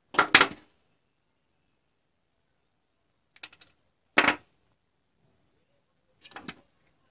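Short clusters of hard clicks and clacks, four times, as cylindrical lithium-ion cells are handled and knocked against one another; the bursts near the start and a little past the middle are the loudest.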